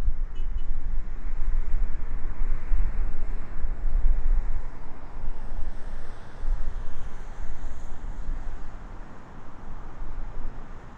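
Jet airliner passing close on its landing approach: a broad engine noise that swells and then fades away, with wind buffeting the microphone.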